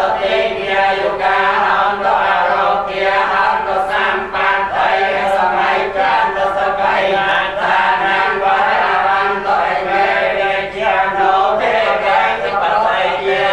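A group of voices reciting a Buddhist chant together in one continuous, unbroken recitation.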